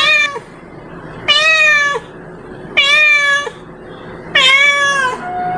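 Domestic cat meowing over and over in a cat-calling lure recording. A drawn-out meow comes about every second and a half, each one dipping in pitch at its end. Near the end a longer, quieter, level-pitched call begins.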